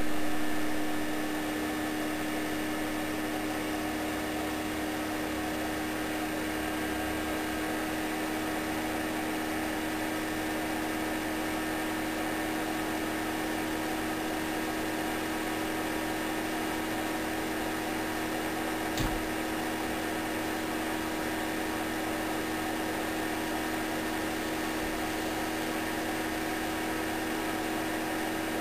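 PC power supply humming steadily with its fan running while it drives an HHO dry cell electrolyser at about 8 amps, 11.5 volts. A single click about 19 seconds in.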